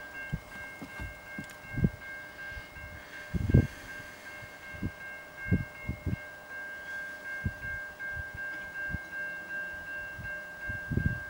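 Wind buffeting the microphone in irregular low gusts and thumps, over a faint steady high-pitched tone.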